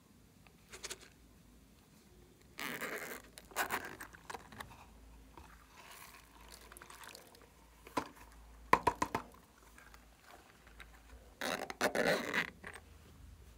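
Hands handling a zippered silicone pencil case and plastic toys over a glass dish of slime. The handling noise comes in short bursts, with a few sharp clicks a little past the middle and a last burst near the end.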